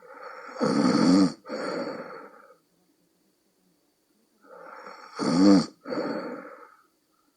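A person snoring in a deep, croaking, bullfrog-like way: two snoring breaths about four and a half seconds apart. Each is a loud vibrating snore, a brief break, then a softer second part.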